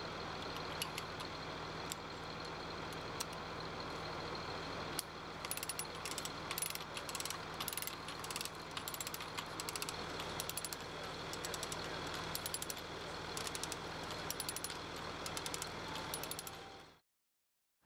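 Overhead cable-stringing machinery running with a steady hum. From about five seconds in, a rapid metallic clicking and rattling joins it, and the sound cuts off abruptly near the end.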